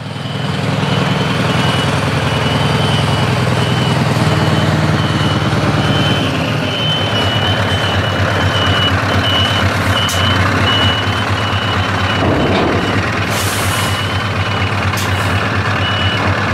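Scania R500 V8 diesel running loudly through its open side exhaust, its note dropping a step about seven seconds in, while the truck's reversing alarm beeps steadily. A short hiss of air comes about thirteen seconds in.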